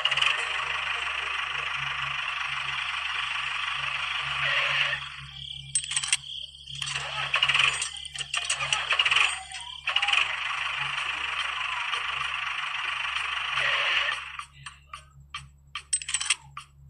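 A small motor whirring with a metallic rattle, steady at first, then cutting in and out in short bursts, then steady again. Near the end it gives way to a series of sharp clicks.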